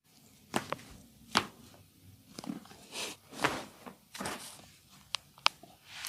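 Hands-on massage: several sharp clicks and smacks, with softer swishing noises between them. The loudest come a little over a second in and near the end.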